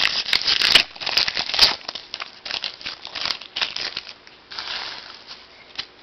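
Foil trading-card pack wrapper being opened and crumpled by hand: a run of crackly crinkling rustles, densest in the first two seconds and thinning out after about five seconds.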